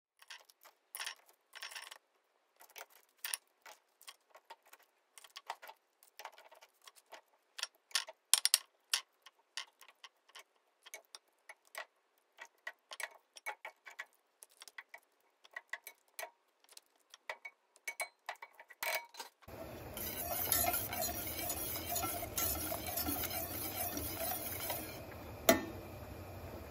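Sparse, irregular light clicks and ticks, then about two-thirds of the way through a steady sizzling hiss begins: garlic butter sauce cooking in a saucepan, with one louder tap near the end.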